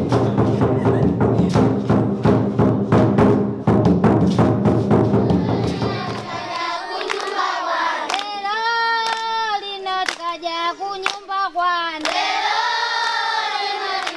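Large drums played in a fast, steady rhythm, stopping about six seconds in. A young girl's voice then sings alone, holding long notes.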